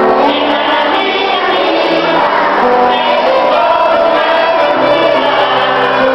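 Music: a song with a choir singing over instrumental accompaniment, loud and steady.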